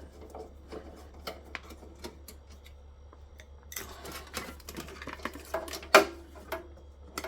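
Scattered clicks and knocks of tools and metal parts being handled while the inverter is taken apart, busiest in the second half, with one sharp knock about six seconds in.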